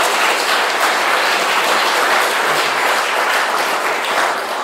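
Audience applauding: steady dense clapping that eases off slightly near the end.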